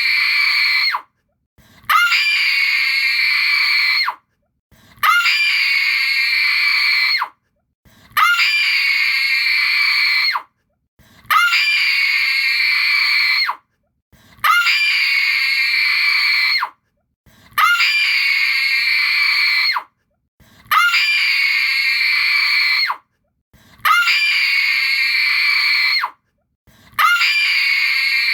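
A woman's terrified, desperate scream: one recording looped, each scream about two and a half seconds long and ending abruptly before a short silence, repeating about every three seconds.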